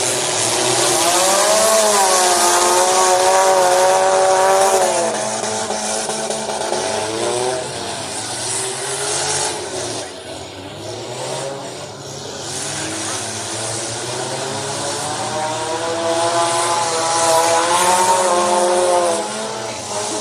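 Car engines revving up and easing off as derby cars run laps around the dirt track, with two long rising-and-falling pulls near the start and near the end.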